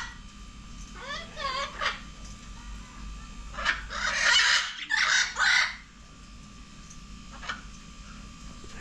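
Birds calling: a wavering, warbling call about a second in, then a run of loud harsh squawks between about four and six seconds, and a short faint call near the end.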